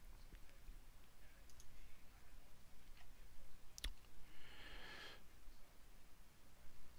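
Faint computer mouse clicks, with one sharper click about four seconds in, followed by a short exhale into the headset microphone lasting about a second.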